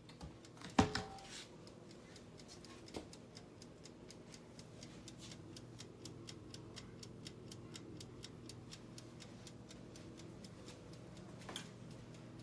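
A mechanical wind-up timer, typical of a toaster oven's timer knob, ticking steadily several times a second over a faint steady hum, after a single knock about a second in.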